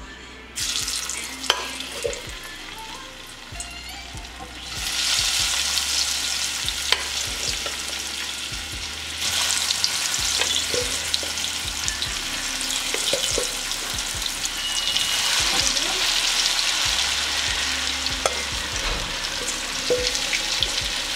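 Cubed potatoes sizzling as they are dropped into hot vegetable oil in a cast iron skillet, with a wooden spoon knocking against the pan now and then. The frying starts about half a second in and grows louder about five seconds in and again about nine seconds in.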